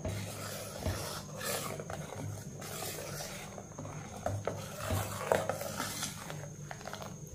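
A steel ladle stirs thick soup in a stainless-steel pressure cooker pot, scraping along the metal sides and bottom with a few light knocks.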